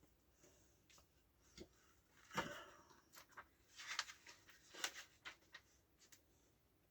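Faint handling noises: a few soft rustles and taps of a comic trade paperback being handled, the loudest about two and a half seconds in.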